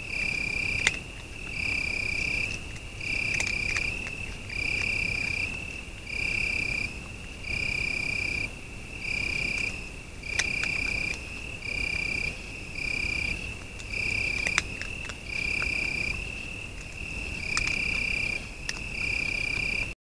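Night chorus of calling animals in grass: a steady high-pitched trill with louder, slightly lower calls repeating about every second and a half, plus a few faint ticks. It stops abruptly at the very end.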